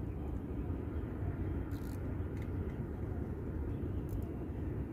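Steady low outdoor rumble, a mix of wind on the microphone and distant city traffic, with a few faint clicks about two and four seconds in.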